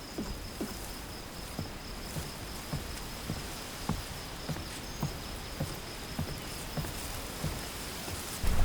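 Countryside ambience: a steady high cricket trill with soft, irregular low knocks about twice a second. A louder low rumble comes in near the end.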